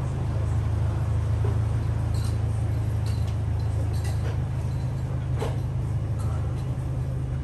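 A steady low mechanical drone, like a running engine or motor, with light clicks and knocks scattered through it.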